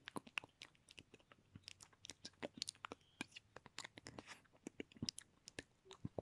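Close-miked ASMR mouth sounds: quick, irregular wet clicks and smacks of lips and tongue, several a second, faint and varying in strength.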